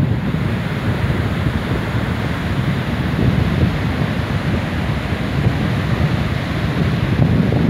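Ocean surf breaking on a beach: a steady rushing noise, with wind buffeting the microphone and adding a low, fluttering rumble.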